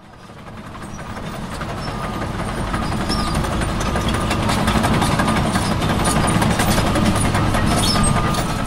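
Heavy truck engine running steadily with a low rumble and some rattle, fading in from silence over the first couple of seconds.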